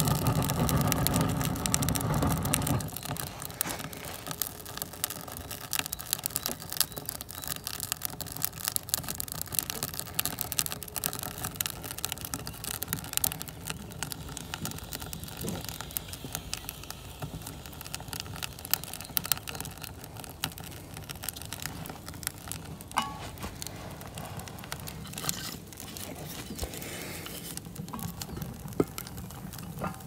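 Wood fire burning in a rocket stove's steel firebox, the split sticks giving off many small irregular crackles and pops over a low steady rush. The first few seconds are louder, with a few steady tones.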